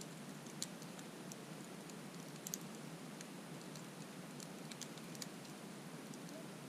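Wood campfire crackling: irregular small pops and ticks over a soft steady hiss.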